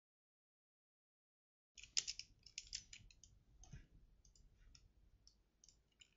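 Silent at first. About two seconds in, a run of light clicks from a computer mouse and keyboard begins, densest just after it starts and thinning to scattered single clicks.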